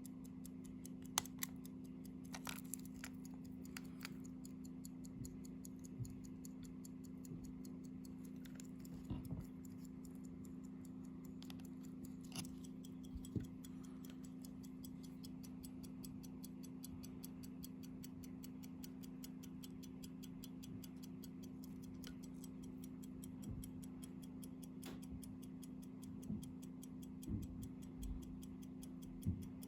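Antique hand-wound Favre-Brandt pocket watch movement running, with rapid, even ticking heard close up over a low steady hum. A few louder clicks from handling come through now and then, several of them near the end.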